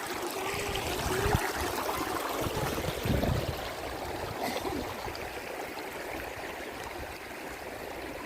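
River water flowing steadily over a stream bed, with a few low bumps about one and three seconds in.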